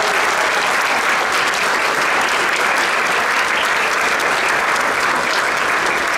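Audience applauding steadily: a dense patter of many hands clapping, answering a call to applaud the parents.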